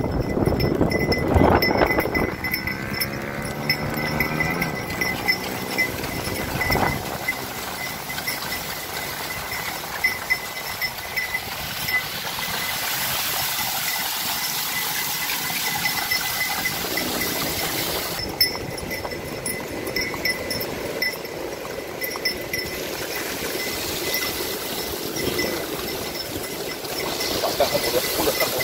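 Horse-drawn cart rolling along the beach edge: a steady rush of wind and surf, with the wheels running through shallow sea water, and a faint high jingle of harness bells throughout. A long, wavering pitched call sounds a couple of seconds in.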